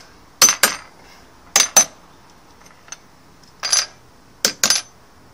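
Sharp metallic clinks, mostly in quick pairs, four times: metal kitchen tongs tapping and gripping a small piece of metal.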